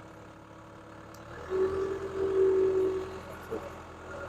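Caterpillar 287B skid steer's turbo diesel engine running. About a second and a half in it gets louder, holds a higher steady tone for nearly two seconds, then settles back.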